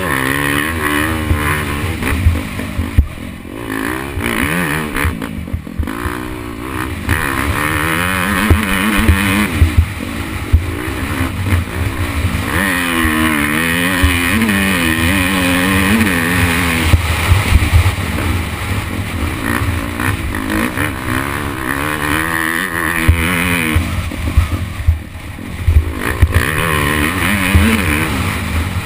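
Dirt bike engine revving up and dropping back again and again as the rider accelerates and shifts through the gears, heard from a camera mounted on the bike, with a heavy rumble of wind and knocks from the rough ground underneath.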